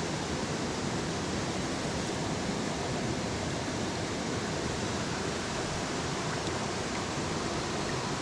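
Mountain stream water rushing over rocks: a steady, even hiss with no change.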